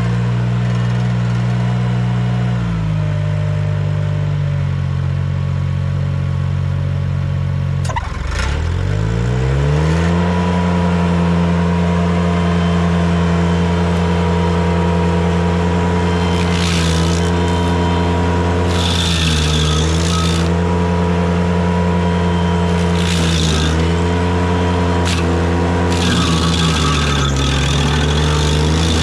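Ventrac compact tractor's engine running under the KC220 stump grinder attachment. It is throttled up about eight seconds in, then sags in pitch briefly several times under load, each sag joined by a short burst of higher-pitched grinding noise as the cutter wheel bites into the stump.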